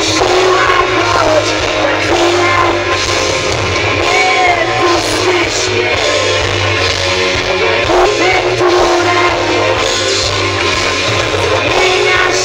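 Live band playing through a concert PA, with a woman singing over guitars and drums, heard from the crowd in front of the stage.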